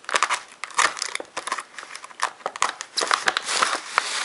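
Paper mailer envelope sealed with clear packing tape being cut open with a utility knife and handled: a dense run of irregular crinkles, crackles and small snaps of tape and paper.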